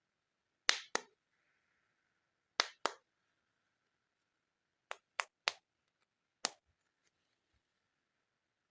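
Hard plastic toys tapping and clicking against each other or a hard surface as they are handled: eight sharp clicks, two pairs early on, a quick run of three midway, and one more later.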